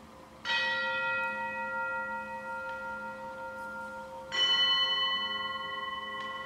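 Altar bell struck twice, marking the elevation of the host at Mass. Each strike rings on with several steady tones that slowly fade, the first about half a second in and the second, louder, about four seconds in.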